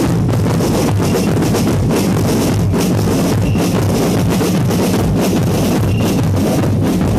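Loud band music with a steady drum-kit beat and a heavy bass.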